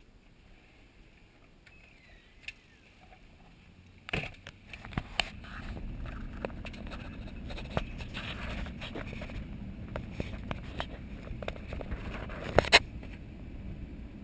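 A few quiet seconds, then from about four seconds in a truck driving on a gravel road: a steady low rumble of tyres and engine, with many small clicks of stones against the body and one loud crack near the end.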